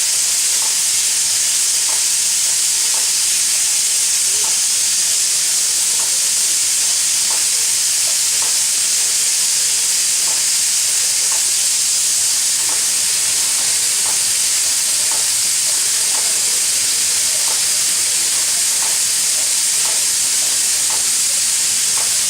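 Steam locomotive L-4600 letting off steam: a steady, loud hiss, with faint short sounds about once a second underneath.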